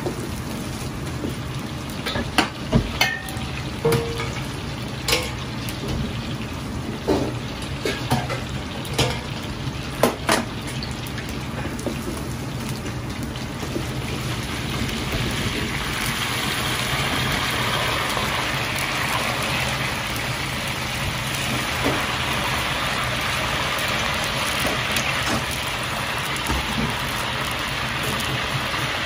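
Coated chicken wing pieces deep-frying in a wok of hot oil, a steady sizzle over a low hum, with a metal ladle clinking against the wok a dozen or so times in the first ten seconds. About halfway through the sizzle grows louder and denser.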